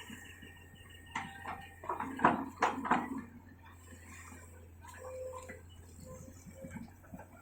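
A run of sharp knocks and clatters about a second in, bunched over the next two seconds, then fainter scattered ticks, over a steady low hum.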